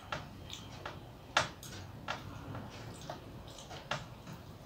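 Fingers mixing rice and curry on a metal plate: irregular sharp little clicks and taps, the loudest about a second and a half in.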